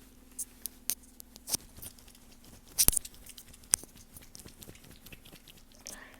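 Crinkling and crackling of paper tissues being handled close to the microphone: scattered sharp clicks, with one louder crackle about three seconds in.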